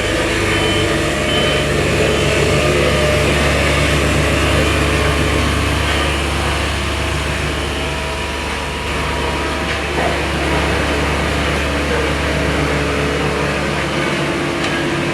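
Heavy road-works machinery with its engine running steadily: a loud, even low hum with no break.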